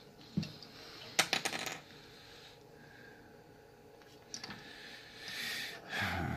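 A black plastic side-release buckle being unsnapped from a bracelet jig: a few sharp plastic clicks, the loudest a quick cluster about a second in, followed by faint handling noise as the paracord bracelet is lifted off.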